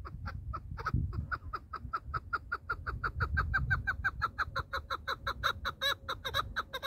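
Chukar partridge calling: a long, fast run of clucking 'chuck' notes, about six or seven a second, growing louder toward the end.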